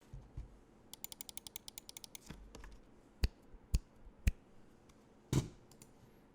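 Mechanical keyboard with stock JWK yellow switches on an aluminum plate with PBT keycaps, typed on: a quick run of light, even keystrokes, then a few separate louder key presses and one heavier strike near the end.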